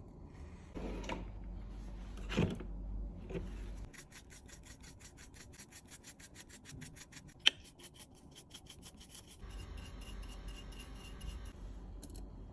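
Rubbing or scraping by hand: three slower strokes, then a fast, even run of short strokes at about seven a second, broken by one sharp click.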